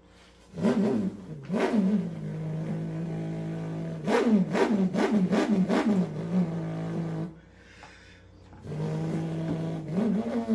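A man imitating a Formula One car engine with his voice: a couple of sharp revs, a held steady drone, then a quick run of rising and falling rev blips. After a short pause, the drone comes back and rises into another rev near the end.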